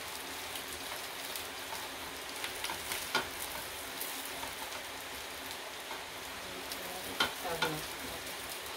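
Food sizzling in oil in a frying pan, a steady hiss, with a few sharp clicks about three seconds in and again near the end.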